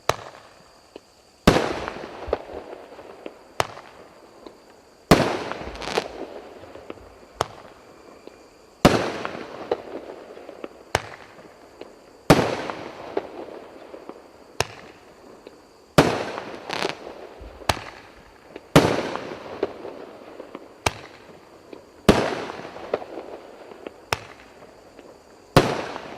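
An 8-shot 1-inch Roman candle firing: eight loud launch thumps about three and a half seconds apart, each followed by the fading hiss of a brocade comet, with smaller sharp cracks in between.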